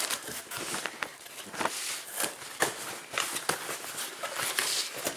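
Hands working at a tightly sealed cardboard box: scattered clicks, scrapes and light rustling, several a second.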